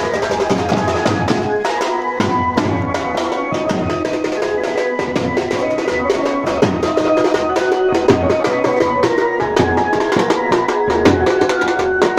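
Procession music: drums beaten in a fast, steady rhythm with sustained melody notes over them.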